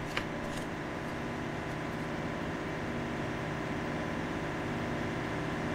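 Steady mechanical hum with a faint hiss and a few fixed tones, like background shop machinery; a faint click just after the start.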